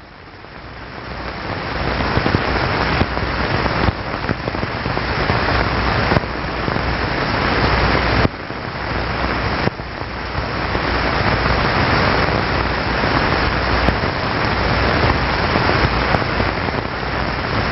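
Steady rushing noise without any pitch, like rushing air or water, fading in over the first two seconds and dropping or jumping in level suddenly several times.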